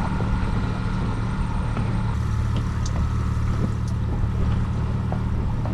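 Boat engine running steadily at low trolling speed, an even low hum with a few faint small ticks over it.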